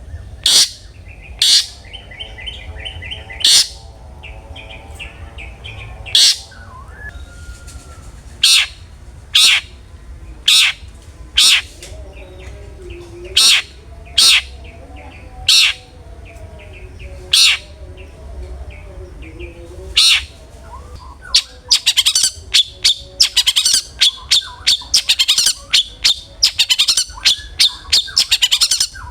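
Long-tailed shrike (cendet) singing loud and open ("ngeplong"): sharp, piercing calls about once a second with soft warbling between them. About two-thirds of the way through it breaks into a fast, dense run of sharp calls.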